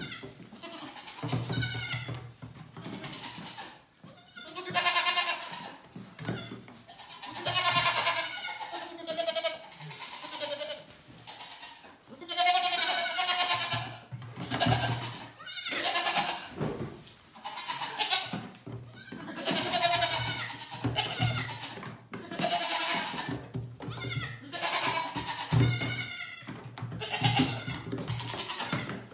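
Goat kids bleating over and over, many high-pitched calls following one another every second or two.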